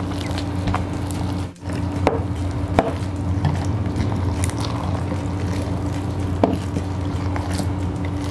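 Foam-ball slime (floam) being squeezed and kneaded by hand in a glass bowl: wet squishing with scattered sharp crackles and pops from the foam beads.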